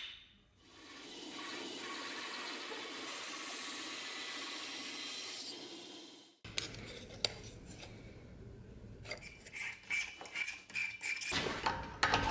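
Small power bench saw cutting through a walnut handle blank: a steady noise that stops abruptly about six seconds in. Then irregular metallic clicks, scrapes and a brief squeak as a threading die is turned by hand on a steel rod held in a vise.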